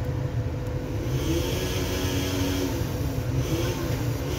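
Steady low mechanical hum, like a fan or air-conditioning unit running, with a faint hiss that swells for a couple of seconds in the middle.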